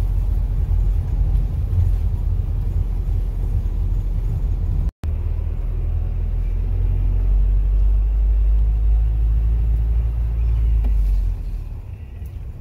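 Steady low rumble of a vehicle driving on a rough road, heard from inside the vehicle. The sound cuts out for an instant about five seconds in, and the rumble eases near the end.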